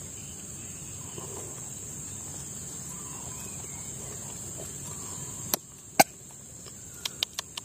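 Insects chirring in one steady high-pitched drone. Two sharp clicks land about five and a half and six seconds in, and a few lighter clicks follow near the end.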